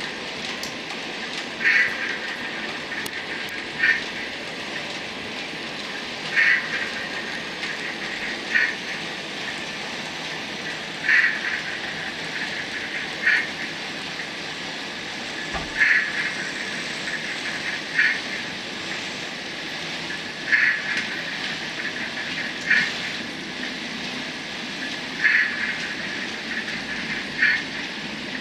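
Model train running on the layout track: a weathered Hornby OO-gauge Class 60 locomotive hauling a long rake of PCA cement tank wagons. A steady running hum is broken by short, sharp, higher-pitched bursts that come back in pairs every couple of seconds.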